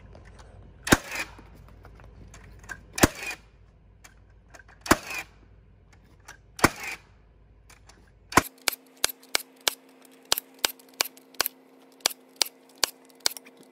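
Cordless framing nailer driving nails into a wooden floor joist: four sharp bangs about two seconds apart, each with a short ringing tail. From about eight seconds in, a quick, even run of fainter clicks, about three a second, sounds over a steady hum.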